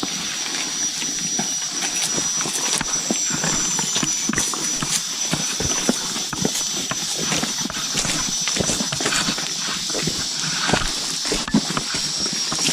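Footsteps of hikers walking on a rainforest trail, irregular knocks and scuffs, over a steady high-pitched insect drone.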